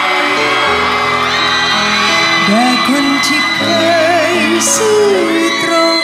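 A man singing a Thai pop song into a handheld microphone over a backing track, his voice wavering in pitch on held notes.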